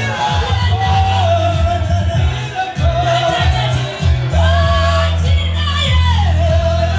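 Church worship music: a voice sings long held notes over a heavy bass line and a busy drum beat.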